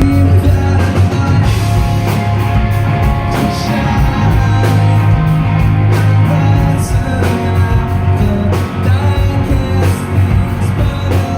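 Loud rock music with singing, guitar and drums over a heavy, steady bass.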